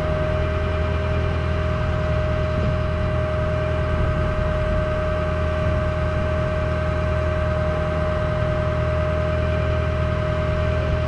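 A tow truck's engine idling steadily, a low even drone with a constant whine above it.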